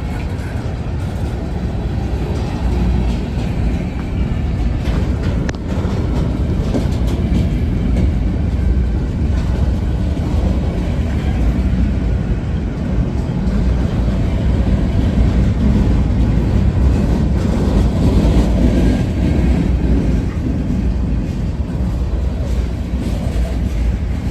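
Freight train rolling past, a steady rumble of wheels on rail that swells a little past the middle and then eases.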